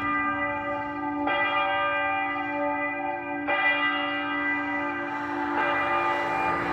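Church bell tolling: three strikes about two seconds apart, each ringing on into the next over a steady low hum.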